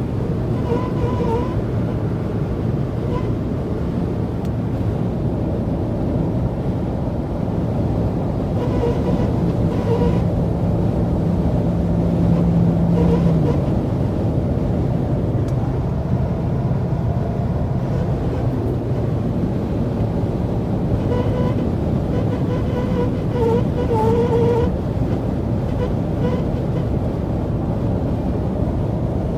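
2016 Toyota Tacoma door seal making an intermittent reed-like buzz in crosswind, sounding in short wavering patches over steady road and wind noise. This is the known faulty door seal (part 67861-04070) covered by Toyota's service bulletin.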